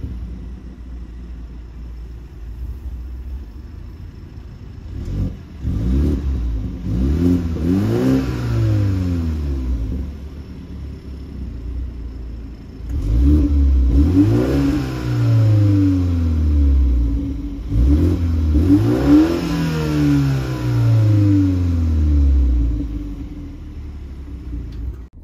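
BMW 430i's 2.0-litre turbo four-cylinder idling and then being revved while parked, heard from outside at the rear. A few quick blips come first, in Comfort mode. Two longer revs rise and fall back to idle in Sport mode, with the exhaust flap open for a raspier note.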